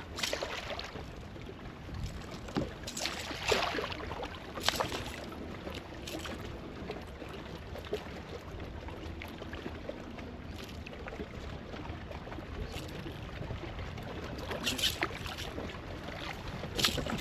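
Lake water lapping and slapping against a kayak hull, with a handful of short, sharp splashes. Wind buffets the microphone throughout.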